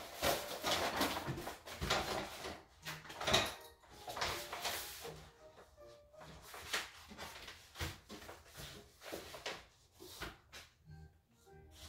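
Roll of self-adhesive contact paper rustling and crackling in irregular bursts as it is rolled back against its curl and unrolled on a countertop. Faint music comes in underneath in the second half.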